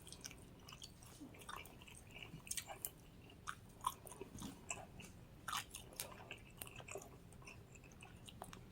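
Faint close-up chewing of fried chicken wings: soft, irregular wet mouth clicks and smacks.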